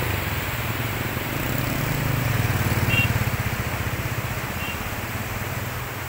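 A motorcycle engine running close by, loudest about two to three seconds in, over the steady rush of a fast-flowing river.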